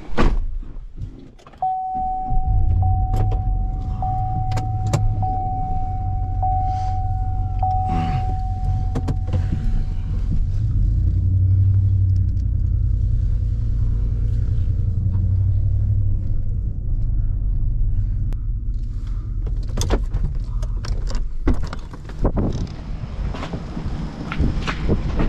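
An SUV's engine starts about two seconds in and runs steadily as the vehicle is driven. A steady high tone sounds over it for the first several seconds. Scattered sharp clicks and knocks from inside the cab come through, with several loud ones near the end.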